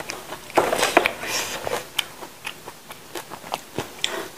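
Close-miked eating: biting and chewing, heard as a run of sharp mouth clicks and brief bursts of noise.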